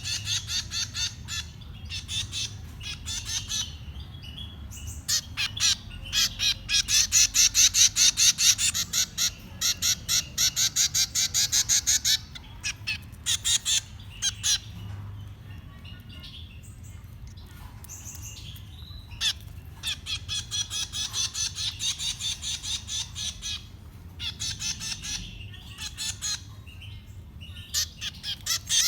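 Finch nestlings begging: rapid, high, repeated squeaky calls, about four to five a second, in runs of several seconds, loudest about a quarter of the way in and dying down briefly near the middle.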